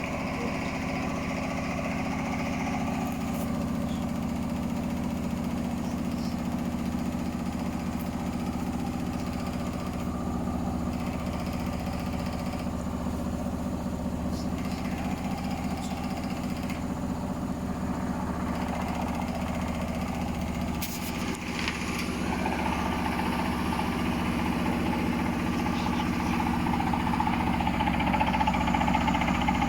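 Hotpoint Smart Tech washing machine on its spin cycle, drum spinning with a steady mechanical drone and a fast even pulsing, a little louder from about two-thirds of the way in. The strange noise comes from a very unbalanced load.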